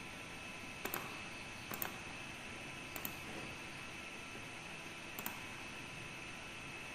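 Computer mouse clicking four times over a steady hiss, each click a quick double tick of the button pressed and released.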